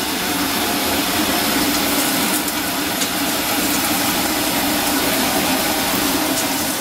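Pancake batter frying in a frying pan on a gas hob: a steady hiss with a low hum under it.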